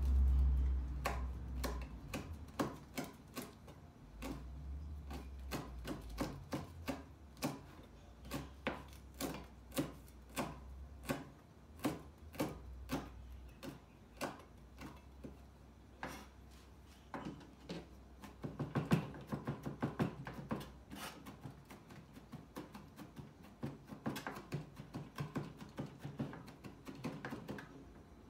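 Chef's knife chopping garlic, chili and kaffir lime leaves on a plastic cutting board: steady knocks of the blade against the board, a few a second, quickening briefly past the middle.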